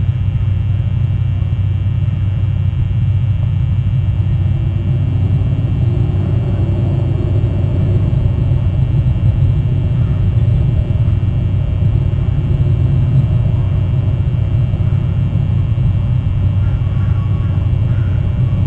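Steady low rumble with no break.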